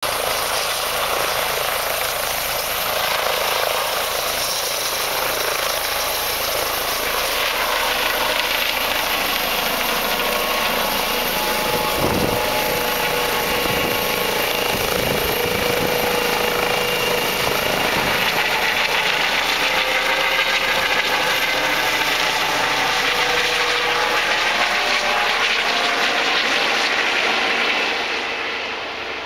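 Air ambulance helicopter, a light twin-turbine type with a shrouded fenestron tail rotor, lifting off close by and climbing away: loud, steady rotor and turbine noise with a high turbine whine, fading a little near the end as it departs.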